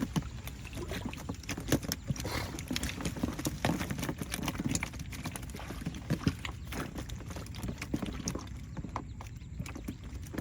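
Irregular knocks and clicks, as of things moving against a small boat on the water, over a steady low rumble.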